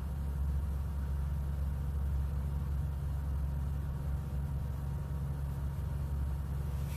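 Steady low background hum with no speech or music, unchanging throughout.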